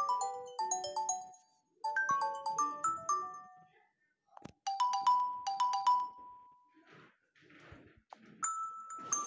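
Nokia 3.1 Plus smartphone ringtones previewed one after another: several short tunes of quick notes, each cut off after a second or two, with short pauses and a tap between them.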